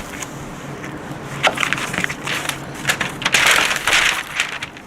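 Butcher paper crinkling and rustling in irregular crackles as it is handled and folded around a rack of ribs.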